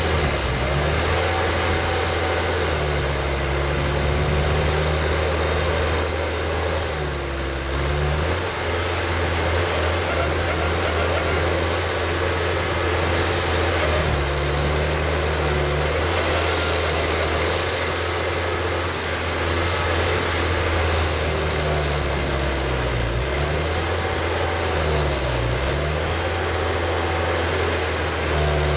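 Highway HHF truck-mounted pressure digger drilling: its engine runs steadily under load. A higher tone swings down and back up in pitch several times as the drill works.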